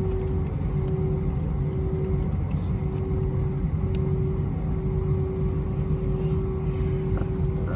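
Steady cabin noise inside an Airbus A320-231 shortly after takeoff: a low rumble from its IAE V2500 engines and the airflow, with a constant droning hum over it.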